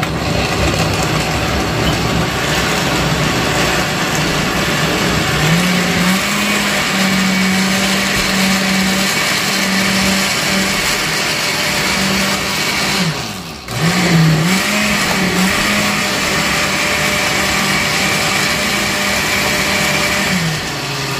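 Countertop blender motor running at speed, pureeing tomatoes, chiles, garlic and onion into salsa. Its pitch rises a few seconds in; about two-thirds through it stops for a moment and starts again, then drops in pitch near the end.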